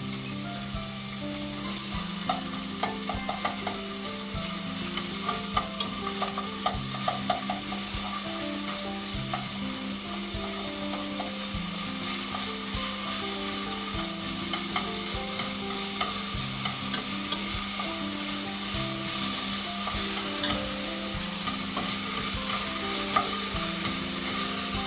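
Julienned ginger and garlic sizzling in a little oil over medium heat in a BRUNO Multi Grill Pot, stirred with chopsticks; the frying hiss grows slowly louder as the aromatics cook until fragrant.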